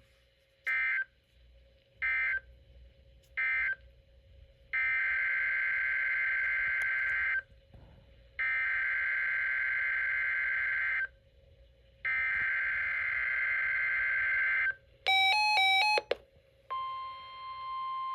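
Emergency Alert System SAME data tones. Three short end-of-message bursts end the warning, then three longer header bursts of warbling two-tone data open the next alert. After about a second of rapid stepping electronic beeps, the steady 1050 Hz NOAA Weather Radio attention tone begins near the end.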